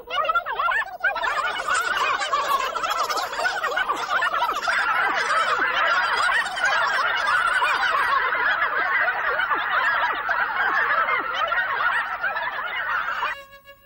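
A cartoon gabble effect: many high, sped-up voices chattering and gobbling over one another in a dense, unbroken clamour. It stops suddenly near the end.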